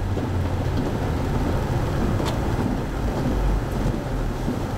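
Steady low rumble of a car driving, with one short knock a little over two seconds in.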